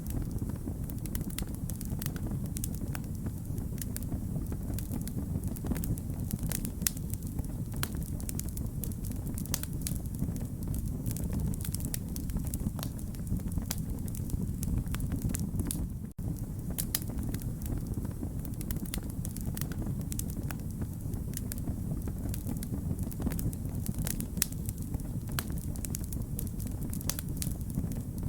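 Wood fire crackling, with irregular sharp pops and snaps over a steady low rumble. The sound drops out for an instant about 16 seconds in.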